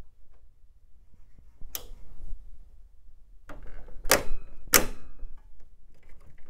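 Plastic clicks and knocks from a stock Intel Socket 478 Pentium 4 cooler being fitted and pressed down onto its retention frame on the motherboard. There is one click near two seconds in, then two sharp clicks less than a second apart later on.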